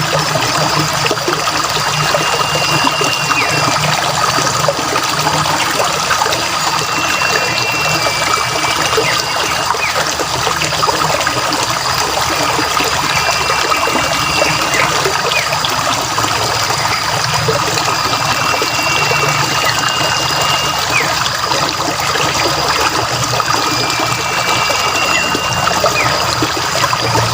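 Water trickling steadily, with a bird's short whistled call repeating about every five seconds over it.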